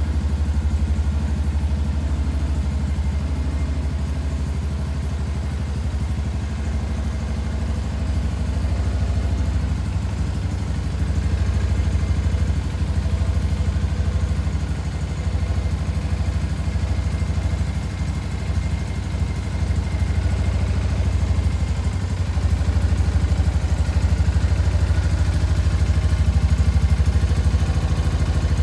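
Shelby Renz 200 motorcycle engine, a Chinese 200 cc Ninja replica, running steadily at a low, even speed with only small rises and dips in loudness.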